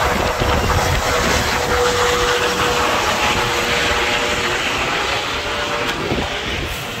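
Helicopter's rotor and turbine noise, steady and loud as it climbs away overhead after take-off, growing a little fainter near the end.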